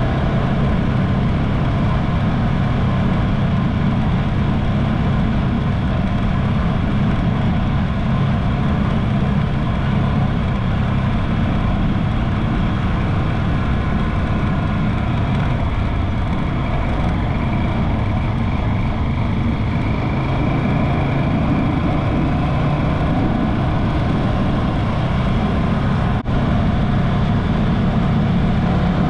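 Motorcycle engine running steadily under way, with road and air noise, with a momentary break in the sound near the end.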